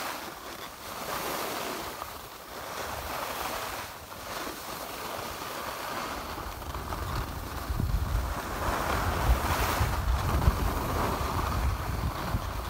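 Skis hissing and scraping over groomed snow, the hiss swelling and fading every couple of seconds, with wind buffeting the microphone that comes in about halfway and grows stronger.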